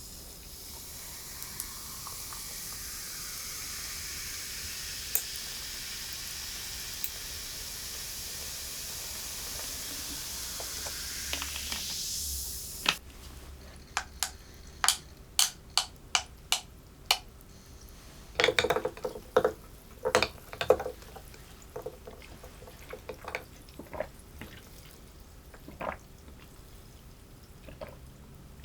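Liquid pouring in a steady hissing stream that slowly grows louder, cutting off suddenly about thirteen seconds in. It is followed by a run of sharp, separate clinks and taps.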